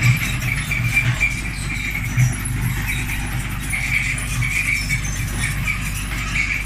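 Hitachi excavator's diesel engine running steadily with a low pulsing note, with metallic rattling over it.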